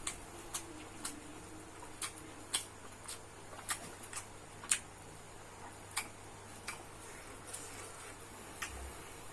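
Eating sounds: short, sharp clicks at an uneven pace, about one every half second to a second, from a spoon against a plate and from mouth sounds while eating fried rice.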